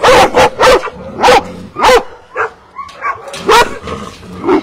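Dogs in boarding-kennel enclosures barking repeatedly, about ten short barks at roughly two a second.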